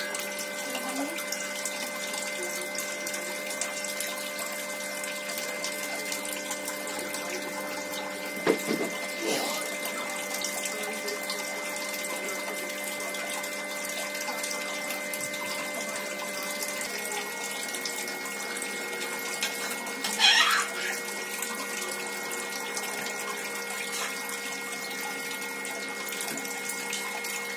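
Homemade egg incubator running: a steady hum of several tones over a hiss, its pitch shifting slightly about seventeen seconds in. A short sound about eight seconds in and a louder one about twenty seconds in stand out above it.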